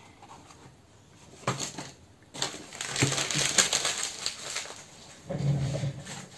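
Crinkly packaging rustling and crackling as it is handled. It starts about two seconds in after a faint tap, is loudest midway, and has a softer, lower rustle near the end.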